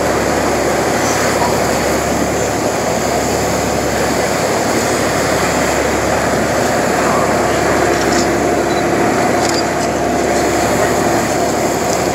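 Steady engine drone of a motor boat under way, heard from on board, even and unbroken throughout.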